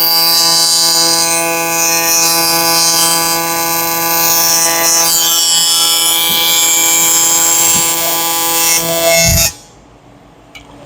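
AC TIG welding arc on aluminum, a steady buzz at one fixed pitch with a crackling hiss above it, cutting off suddenly about nine and a half seconds in as the arc is broken at the end of the pass.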